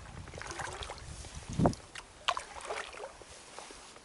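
Canoe paddle stroke pulling through calm water about one and a half seconds in, with drips and small splashes around it.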